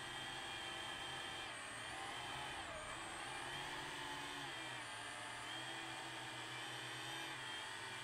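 DJI FPV drone's brushless motors and propellers whining steadily, the pitch dipping and recovering a few times as the throttle changes.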